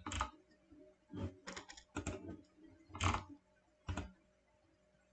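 A handful of short, irregular clicks and taps at a computer, about six in the first four seconds, as the pages of a PDF drawing set are flipped.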